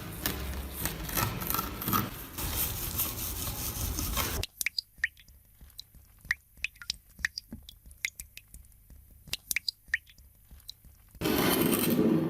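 Rasping scrape of scrubbing on the metal parts of a rusty manual meat grinder. Then, after an abrupt change, a scatter of light metallic clicks and taps, some ringing briefly. The scraping noise resumes near the end.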